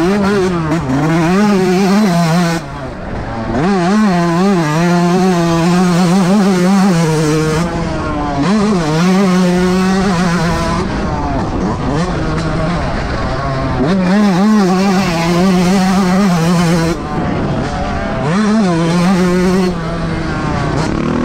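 Yamaha YZ125 two-stroke single-cylinder engine, heard from an onboard camera, revving hard and rising and falling in pitch as the rider goes through the gears around the track. The throttle shuts off briefly several times, about 2.5 s in, near 11 s and around 17 and 20 s.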